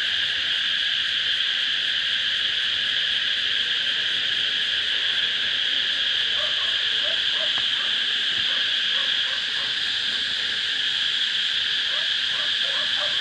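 Steady chorus of forest insects, a continuous high shrill drone at an even level, with a few faint short sounds about halfway through and near the end.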